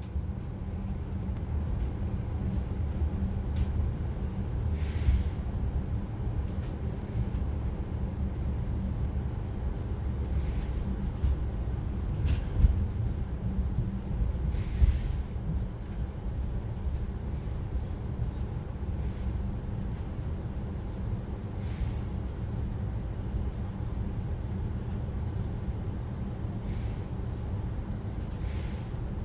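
Regional train running, a steady low rumble heard from on board, with a few short hisses along the way.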